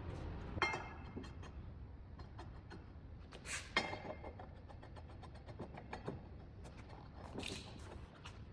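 A few light metallic clinks and knocks from tools and metal parts being handled during a paper-cutter blade change, two of them ringing briefly, over a low steady hum.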